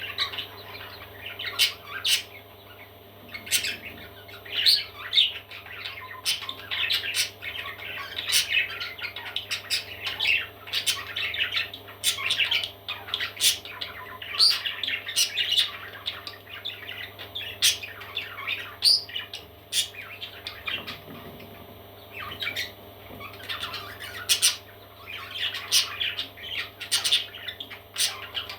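Parrot chicks squawking, with many short harsh calls in quick succession and brief lulls, over a steady low hum.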